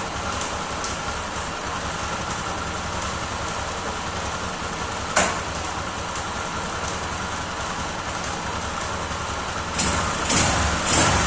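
Honda CG Titan's single-cylinder four-stroke engine running steadily in second gear. There is a sharp click about five seconds in and a few louder knocks near the end.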